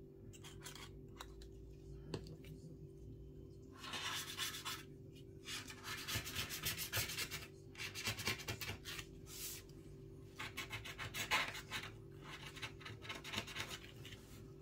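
Repeated scraping and rubbing strokes of a hand tool working through the bonding adhesive at the edge of an iPad's broken digitizer glass. The strokes come in runs, starting about four seconds in.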